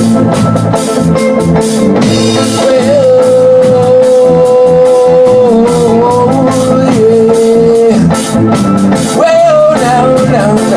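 Gospel band playing between sung lines, with a drum kit keeping a steady beat under bass and electric guitar; a lead line holds a long note for a couple of seconds near the middle.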